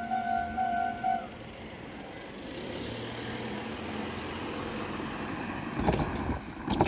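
Japanese level-crossing electronic alarm bell ringing its steady two-tone dings, cutting off about a second in as the crossing clears. Road vehicle noise follows, with louder low rumbles near the end.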